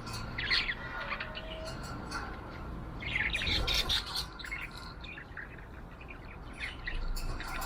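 Budgie chirping and chattering in short bursts, with the busiest, loudest stretch about three to four seconds in.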